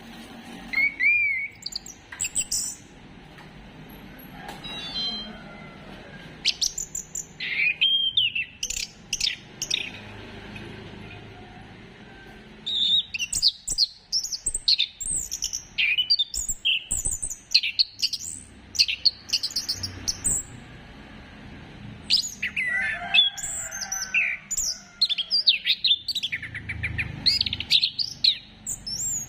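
Orange-headed thrush singing: varied phrases of clear whistles and fast twittering runs, with a pause about a third of the way in, then longer, denser runs of song.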